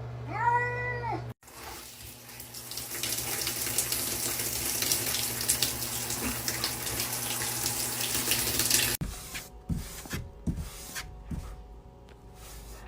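A cat meows once at the start. Then water runs steadily for about seven seconds, stops abruptly, and gives way to a few soft knocks and scrapes.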